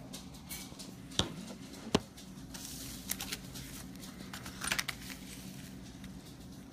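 Scattered light clicks and taps of small objects being handled on a table, with a brief crinkly rustle about three seconds in, over a steady low hum.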